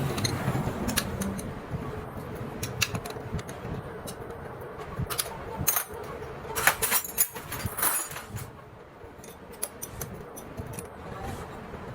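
Metal clinking and tapping of hand tools and small engine parts being handled, a run of sharp clicks that is busiest and loudest about five to eight seconds in.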